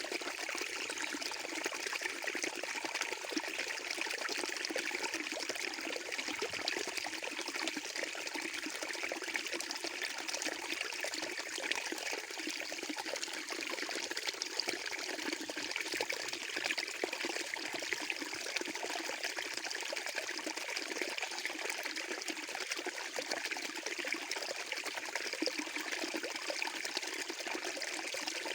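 Running water flowing steadily, an unbroken splashing hiss with little low end.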